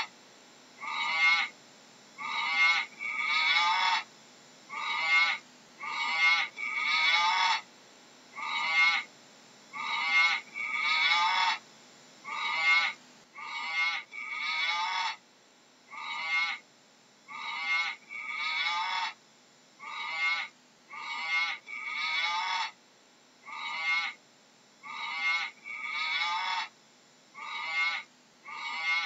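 A long series of short, high-pitched animal calls, about one every second and a quarter, each under a second long, at a steady pace.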